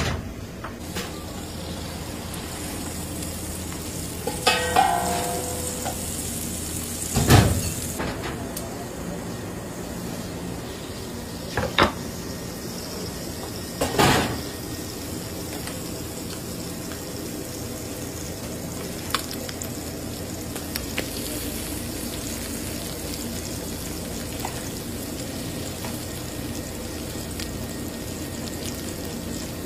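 Octopus sizzling steadily in a hot earthenware pan fresh from the oven. A few knocks and thumps come as the pan is handled and set down, the loudest about seven seconds in.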